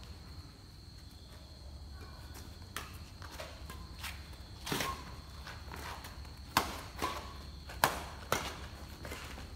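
Sharp slaps of a feathered shuttlecock being kicked back and forth in a fast rally, with shoe scuffs and steps on the concrete court. The strikes grow louder and closer together from about halfway in. A faint steady high tone runs underneath.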